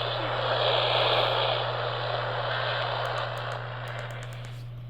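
AM radio static: a steady hiss over a low hum, fading gradually over the last couple of seconds, with a few faint clicks near the end.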